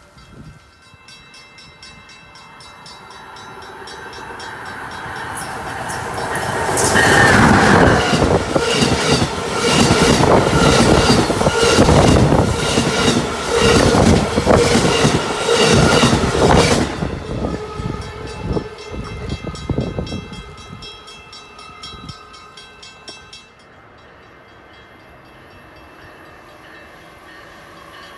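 Amtrak Northeast Regional train, an ACS-64 electric locomotive hauling Amfleet coaches, passing through a station at speed. Its rumble builds over several seconds, then a loud run of wheel clatter over the rail joints lasts about ten seconds before fading away.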